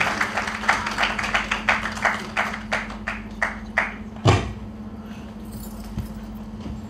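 A percussive beat of evenly spaced strikes, about three a second, fading out over the first four seconds as the closing music ends. A single heavier thump comes a little after four seconds, and a faint steady hum stays under it all.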